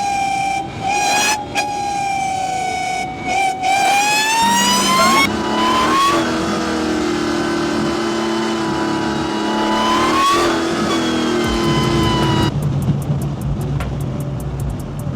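Dodge Challenger Demon's supercharged 6.2-litre Hemi V8 running, with a high supercharger whine over the engine note that rises in pitch as it revs up, about four seconds in and again near ten seconds. The sound changes abruptly twice, about five seconds in and again near twelve seconds.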